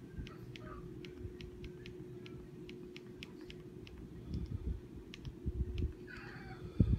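Light, irregular clicking, a few clicks a second, typical of a TV remote's buttons being pressed, over a steady low hum. A few dull bumps come in the second half, the loudest just before the end.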